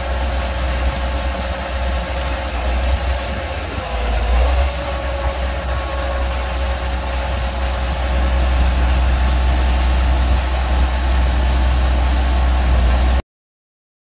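Red Case IH tractor's diesel engine running steadily with a constant whine, as it drives a grain cart's auger unloading corn into a wagon; it grows a little louder about eight seconds in. The sound cuts off abruptly near the end.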